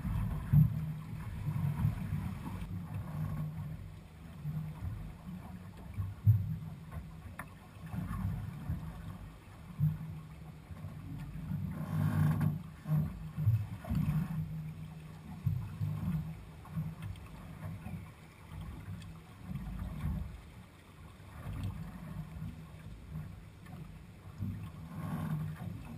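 A small fishing boat's motor running at idle, a steady low hum, with wind and choppy water noise around the hull and a brief louder surge of noise about twelve seconds in.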